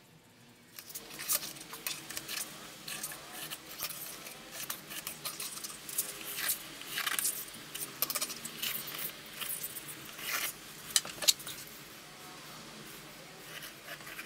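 Small metal tools and a steel knife blade handled on a surface plate while marking out lines: irregular light clicks, clinks and scrapes, with a few sharper ticks about eleven seconds in, quieter near the end.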